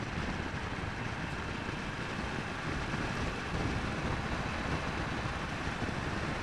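Royal Enfield Meteor 350's single-cylinder engine running at a steady cruise, mixed with steady wind rush and road noise on the rider-mounted microphone.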